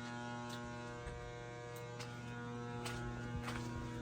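Magnetic ballast of a 12 kW metal halide lamp humming steadily under heavy load, with a few faint ticks.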